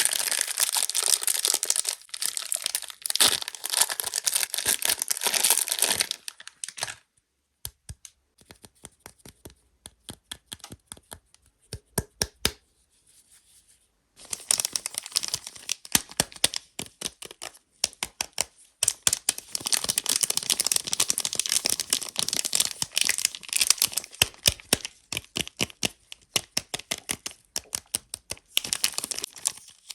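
Soap wrappers being torn open and crinkled: dense crinkling and tearing at first, then a quieter stretch of scattered light crackles and taps, then dense crinkling and tearing again from about halfway through.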